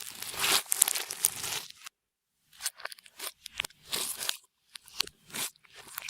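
Clear slime being squished and stretched by hand, giving irregular crackling, crunchy bursts. The sound stops dead for about half a second around two seconds in, then comes back in shorter bursts.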